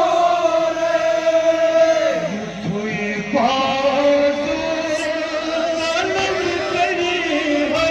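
Men chanting a Kashmiri noha (a Muharram mourning lament) in long, drawn-out notes, led by a male reciter on a microphone, with a short break between phrases a little over two seconds in.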